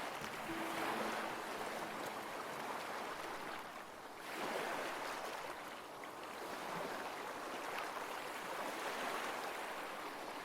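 Gentle ocean waves washing in, a soft rushing surf that swells and eases every few seconds.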